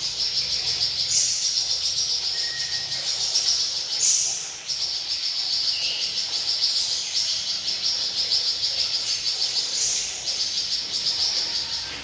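A cage bird known in Indonesia as the 'flamboyan' singing non-stop: a continuous rapid, buzzy high trill, broken every few seconds by a brief higher note.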